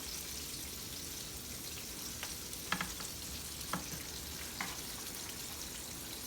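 Floured pieces frying in hot grease in a cast iron skillet, a steady sizzle, with a few short clicks about midway as pieces are pulled up out of the grease.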